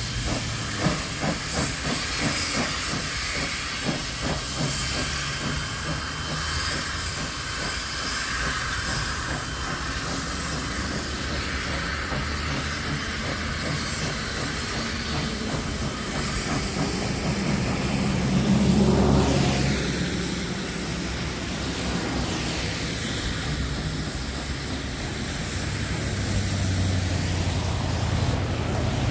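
Steam locomotive 5917, a NSW 59 class 2-8-2, hissing steam, with a run of even beats, about two or three a second, over the first few seconds and a louder swell about two-thirds of the way through.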